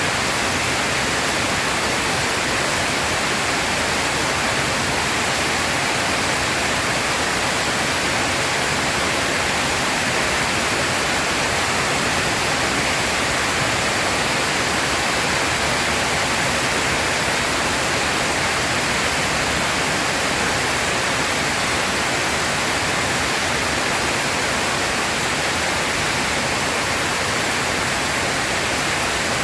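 Heavy rain pouring down in a steady, even hiss, with no thunder or other distinct sounds.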